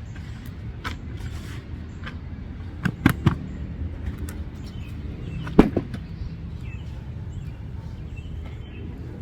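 A few sharp knocks over a steady low rumble: a quick cluster of three about three seconds in and one louder knock a little past halfway.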